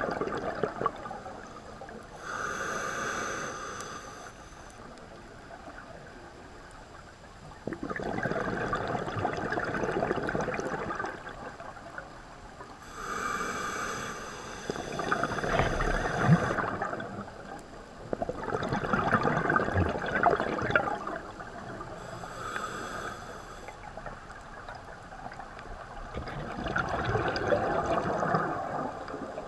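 Scuba diver breathing through a regulator underwater: about three slow breaths, each a short hissing inhale followed a few seconds later by a longer stretch of bubbling exhaled air.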